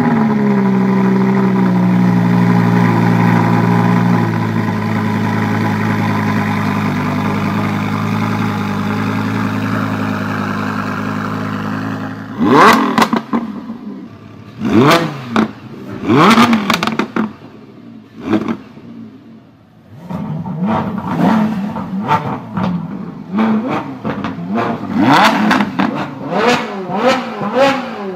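V10 sports car engine held at high revs with a slowly falling note for about twelve seconds, then revved hard again and again, each rev rising and dropping in pitch, with quicker blips near the end.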